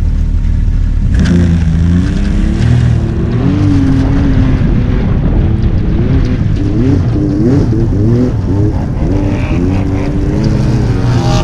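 An off-road vehicle's engine idles steadily for about a second, then revs up and down repeatedly as the machine drives through snow.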